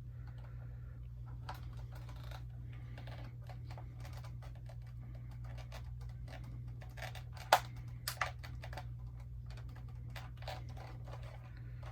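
Small plastic clicks and scrapes of hands prying at the stuck landing-gear wheel of a vintage G.I. Joe Conquest X-30 toy jet, with one sharper click about seven and a half seconds in and a couple more just after. A steady low hum underneath.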